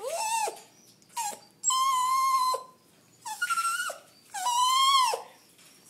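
Poodle whining in about five high-pitched cries, several of them long and held steady, with short pauses between: the dog's eager whine to get at a pet bird.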